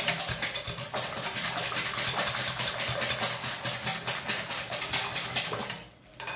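Wire balloon whisk beating cake batter by hand in a glass bowl: a rapid, even rhythm of the wires clicking and scraping against the glass, stopping near the end.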